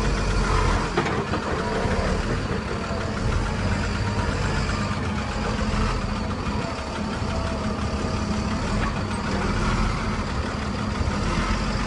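Skip loader lorry's diesel engine running steadily.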